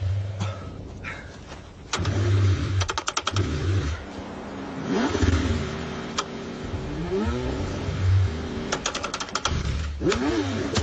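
Car engine cranking in several short bursts on a cold start, struggling and not catching, with two runs of rapid clicking.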